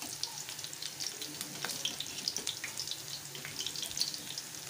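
Coated chicken pieces deep-frying in hot oil: a steady sizzle with frequent crackling pops.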